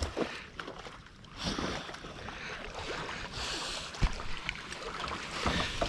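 Water sloshing and splashing as a retriever moves through shallow marsh water on a retrieve, with one sharp knock about four seconds in.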